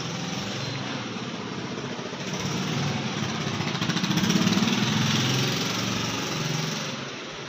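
A small engine or motor running with a steady drone that swells louder about four seconds in and eases off near the end.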